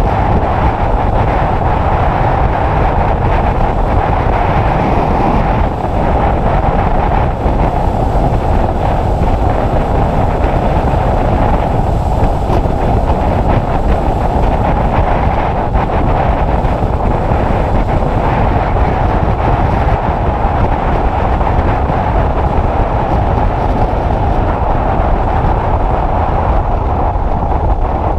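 Wind rushing over the microphone of a Honda CBF600 motorcycle under way: a steady, loud rush with no clear engine note standing out.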